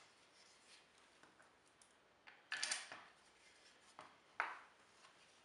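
Small jig parts and hardware handled on an MDF board: a short scraping rattle about two and a half seconds in, then two light taps about a second and a half later.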